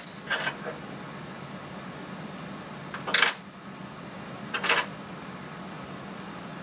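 A few short metallic clicks and clinks, spaced a second or more apart, from small fly-tying tools being handled and set down at the bench after the whip finish. A faint steady low hum runs underneath.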